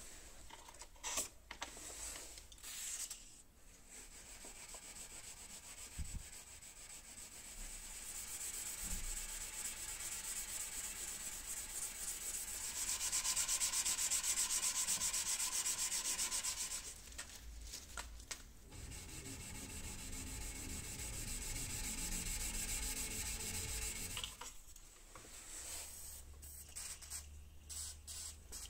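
Sandpaper on a block rubbed back and forth by hand along the flat of a high-speed steel knife blade in quick, steady strokes, loudest near the middle, with a short pause partway through.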